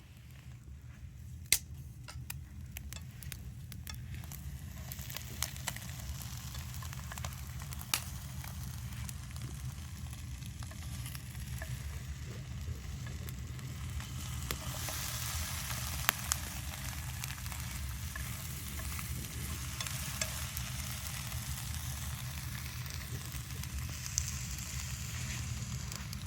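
Food sizzling in a pan over a campfire, a steady frying hiss that swells over the first few seconds and then holds, with a few sharp pops.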